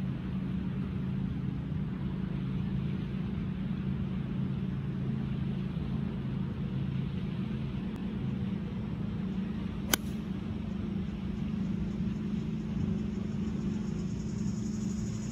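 A golf club striking the ball on a tee shot: one sharp crisp click about ten seconds in, over a steady low engine hum.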